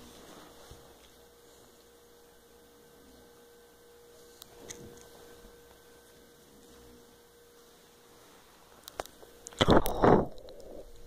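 A faint steady electrical hum with a few soft clicks. Near the end comes a loud burst of bumping and rustling lasting about a second.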